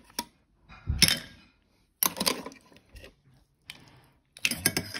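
A metal spoon clinking and scraping against cooked pipi shells and the side of a cooking pot, in several short clusters of clicks.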